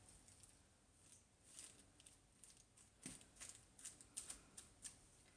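Faint, soft scrapes and crinkles of a silicone spatula pushing sliced steak and vegetables around a foil-lined sheet pan, in short scattered strokes, with one slightly fuller knock about three seconds in.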